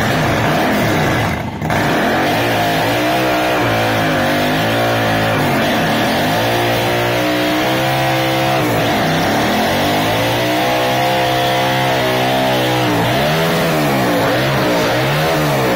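Suzuki Intruder 800's V-twin engine revving hard in fourth gear during a stationary burnout, the rear tyre spinning and smoking against the concrete floor. The revs climb and hold high, drop briefly twice, then rise and fall in quick swells near the end.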